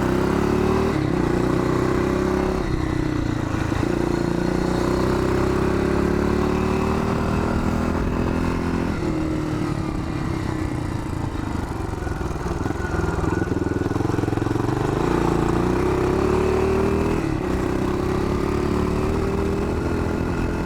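1981 Yamaha XT500's single-cylinder four-stroke engine under way, accelerating hard: the revs climb and drop back several times as it pulls through the gears.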